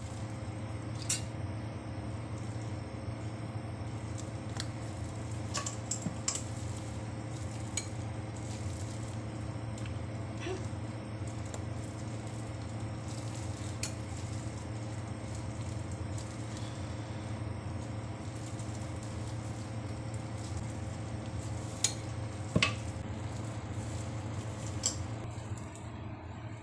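Scattered clinks and clicks of a metal spoon against a metal pot as raw meatballs are dropped into water, the loudest pair a little after halfway, over a steady low hum.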